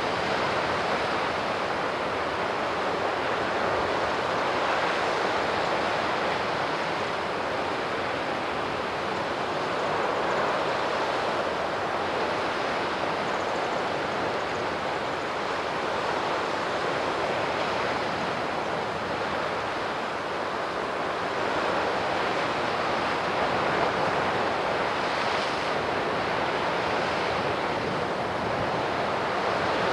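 Sea surf washing on the shore in a steady, continuous rush that swells and eases gently in loudness.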